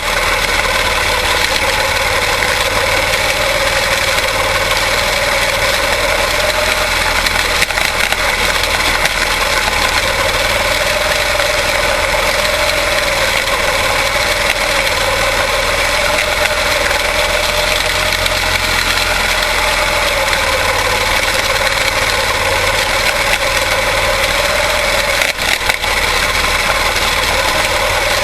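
Quarter midget race cars' Briggs & Stratton Animal single-cylinder engines running steadily on track, their pitch rising and falling in slow waves as the cars lap.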